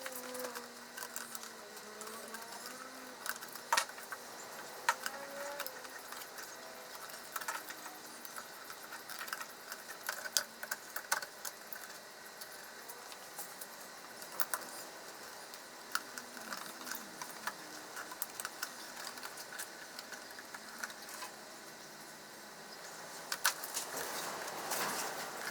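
Scattered light clicks and clinks of small parts and hand tools being handled while wiring up electrical components.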